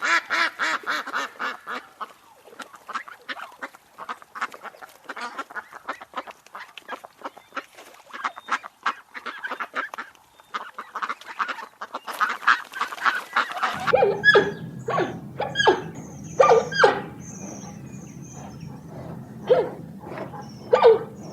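Many birds calling at once in a dense, continuous chatter of short calls; about 14 seconds in it cuts to fewer, louder, separate calls over a low steady hum.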